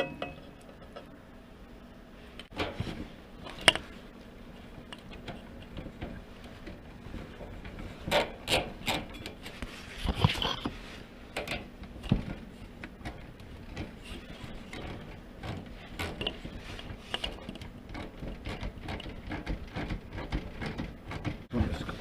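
Irregular clicks, knocks and rattles of hand work on heater parts, hose clamps and fittings. There is a sharp knock in the first few seconds and a run of louder clacks near the middle.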